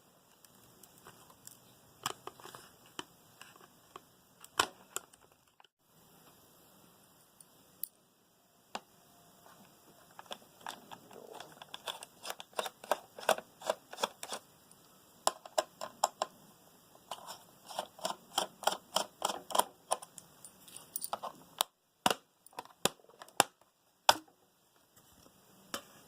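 Keys being typed on a laptop keyboard: runs of quick, sharp clicks, several a second, with short pauses between bursts and a few abrupt cut-offs.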